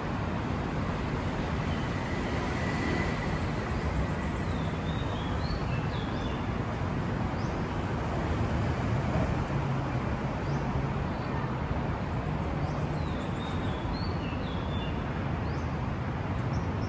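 Steady hum of city road traffic, with a few short high chirps.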